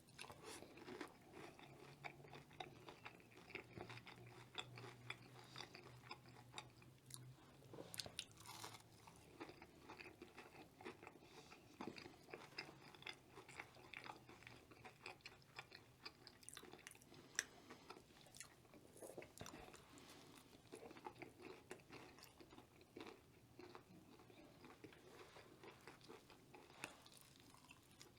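Faint close-miked chewing and biting of crispy fried food, a steady run of small crunches.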